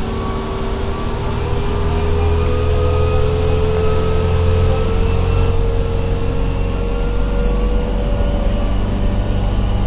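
Motorboat engine running steadily under a constant rushing noise, its whine rising slowly in pitch through the first few seconds.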